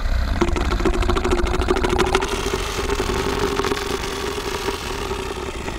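Tyrannosaurus rex roar sound effect: one long, deep rumbling roar that starts suddenly, rattling fast for about its first two seconds, then holding as a steadier growl that fades near the end.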